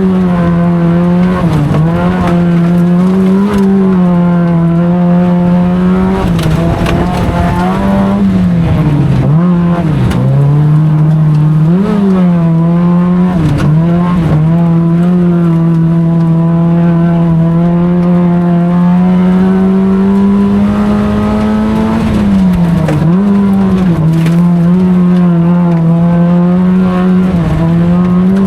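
Autocross race car's engine running hard at high revs. The pitch dips sharply and climbs back several times, as on lifts and gear changes, and holds steady through one long stretch in the middle.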